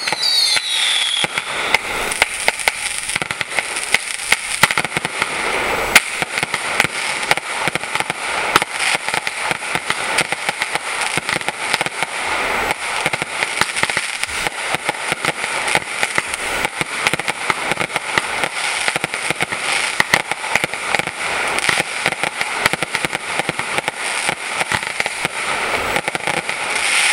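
Fireworks display going off: a dense, continuous run of rapid crackling pops, with a whistle falling in pitch right at the start.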